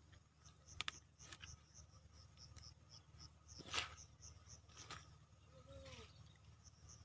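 Near silence: faint insects chirping in an even, repeating high pulse, with two soft clicks about one and four seconds in.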